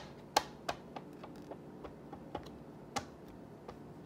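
Square plastic ink pad dabbed repeatedly onto clear acrylic stamps, a run of light, irregular clicking taps; the sharpest come right at the start, just after, and about three seconds in.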